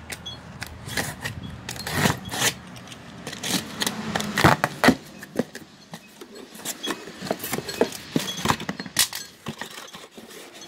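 Utility knife slicing through the packing tape of a cardboard box, then the cardboard flaps being pulled open, with irregular sharp crackles and scrapes of tape and cardboard.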